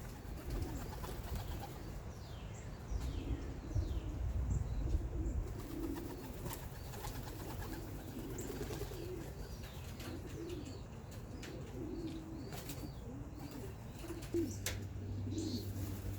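Young homing pigeons cooing again and again around the loft, with gusts of wind rumbling on the microphone, strongest a few seconds in, and a few sharp clicks.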